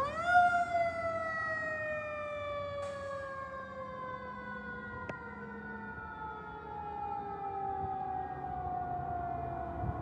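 Fire engine's Federal Q2B mechanical siren, spun up sharply at the start, then winding down in one long, slowly falling wail.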